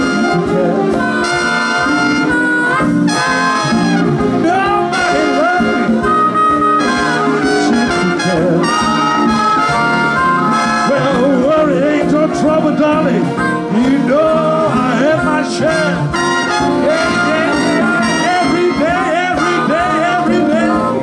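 Live band playing up-tempo jazz in a swing style, with brass instruments carrying wavering melody lines over a dense accompaniment.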